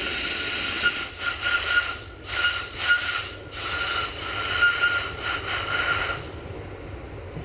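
The air whistle of a CFR class 060-DA (LDE2100) diesel-electric locomotive sounding shrilly in a run of blasts with three short breaks, stopping about six seconds in, over the low rumble of the train.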